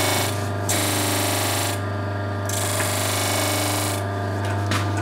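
Bench disc sander running with a steady motor hum. The end of a thin wooden inlay strip is pressed against the sanding disc three times, each a rasping pass of about a second, with short pauses between. The strip is being shortened a little at a time to fit its recess exactly.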